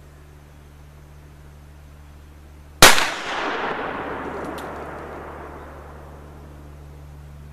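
A single shot from a Ruger Super Blackhawk .44 Magnum revolver with a 10.5-inch barrel, about three seconds in. It is very loud, and its echo rolls off over the following few seconds.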